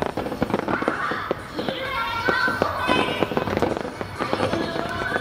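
Aerial firework shells bursting into crackling stars: a dense run of sharp pops and bangs, with music playing along.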